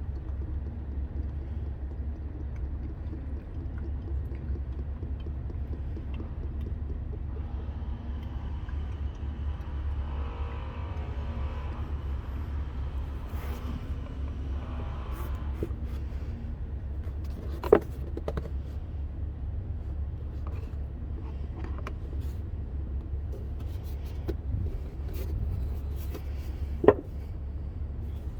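Motor oil pouring from a quart bottle through a funnel into a small engine's filler, glugging for several seconds in the middle, over a steady low rumble; two sharp clicks, one about two-thirds through and one near the end.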